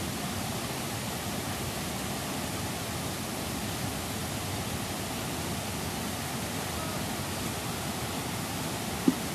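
Fast white water rushing steadily in a constant noise, with one short thump near the end.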